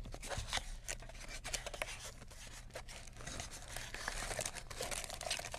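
Cardboard trading-card hobby box being opened and handled by hand: a continuous run of scrapes, rustles and small clicks as the box is worked open and its foil packs are got at.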